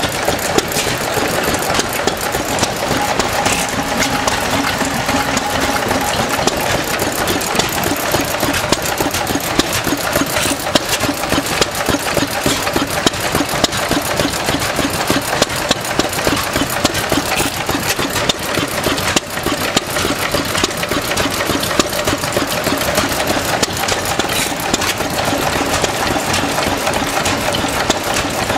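A 4 HP Domestic stationary engine running with a fast, continuous mechanical clatter from its gears and valve gear, mixed with other old stationary engines running alongside.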